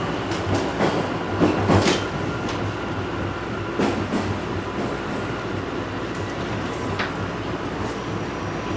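Inside a TTC Toronto Rocket subway car running between stations: the steady rumble of the moving train. A few knocks come in the first two seconds and again around four seconds in, with a single sharp click about seven seconds in.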